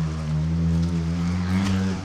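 Yamaha YZ450F dirt bike's single-cylinder four-stroke engine running at steady revs through a Yoshimura RS-12 exhaust, dipping briefly right at the end.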